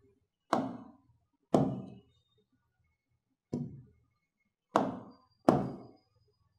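A marker knocking against a whiteboard during writing: five sharp knocks at uneven intervals, each dying away within about half a second.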